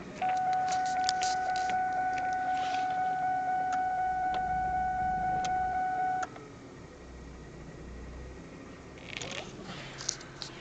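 A steady high-pitched whine from the car, holding one pitch for about six seconds, starting and cutting off suddenly. A few light clicks come at its start and again near the end.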